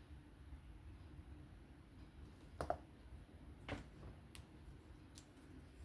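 Four light, sharp clicks, the loudest about two and a half seconds in, as small parts of a folding knife are handled and fitted during reassembly.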